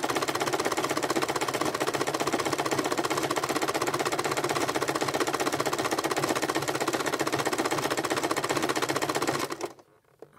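Electric sewing machine running at a steady speed, stitching through a coil of fabric-wrapped rope, a rapid even clatter that stops abruptly near the end.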